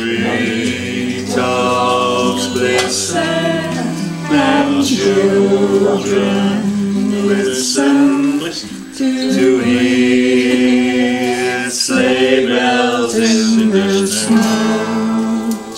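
Acoustic guitar strummed with people singing along.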